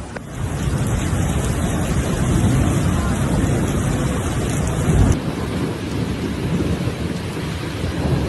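Heavy rain pouring with thunder rumbling through it, a thunderstorm. The sound shifts abruptly about five seconds in, with a brief louder low thud at that point.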